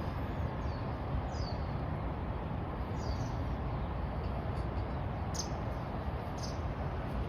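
A few short high bird chirps, the first two falling in pitch, over a steady outdoor background hiss.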